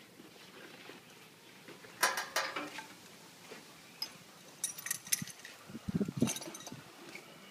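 Metal parts of a small combine harvester being handled and fitted by hand: scattered clinks and clanks, with a cluster of knocks about two seconds in and more around five and six seconds in.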